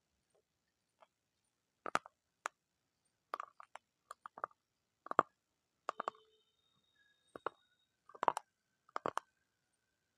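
Close-miked crunchy chewing: sharp crackling crunches at uneven intervals, some in quick clusters of two or three, with quiet gaps between.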